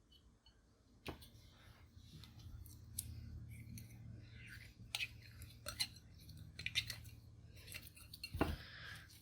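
Clear slime being worked by hand: sticky clicks, crackles and small pops as it is pressed and stretched, with a louder squelch about eight seconds in.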